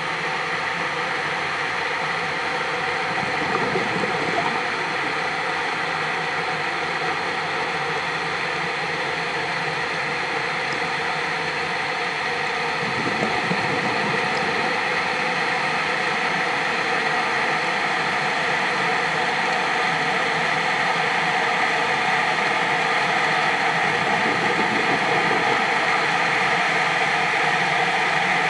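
Steady underwater noise picked up by a diver's camera, a constant hiss and hum with no distinct events, swelling slightly louder about halfway through.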